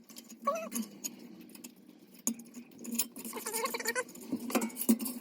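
Hand snips cutting sheet metal: irregular sharp clicks of the blades with a few short metallic squeaks, over a faint steady low hum.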